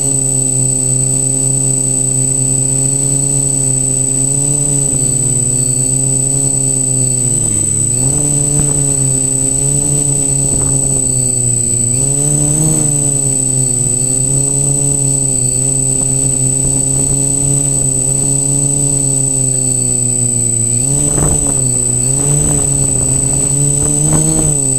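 Multicopter's electric motors and propellers buzzing close to the onboard camera, the pitch wavering as the throttle shifts, with a marked dip about seven seconds in and swells near the end. A steady high-pitched whine sits above the buzz throughout.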